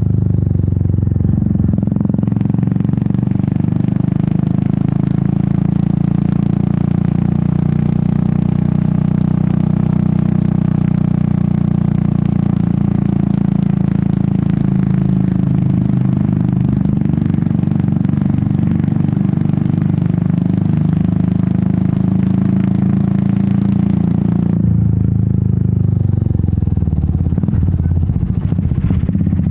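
Royal Enfield Meteor 350's single-cylinder engine and exhaust running steadily while riding, heard from on the bike. Added wind and road hiss rises a couple of seconds in and cuts off sharply near the end, leaving the engine note alone as the bike eases off.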